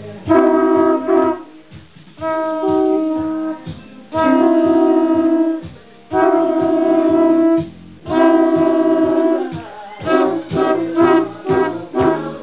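Conch shell blown in five long, steady blasts, each about a second and a half, with short breaths between. The first blast jumps in pitch partway through. A steady beat of music runs underneath and takes over once the blasts stop near the end.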